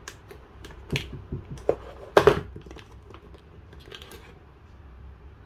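Unboxing handling noises: clicks and light knocks of a plastic power adapter and its cardboard and plastic packaging being taken out of a phone box, with some rustling. The loudest knock comes a little over two seconds in.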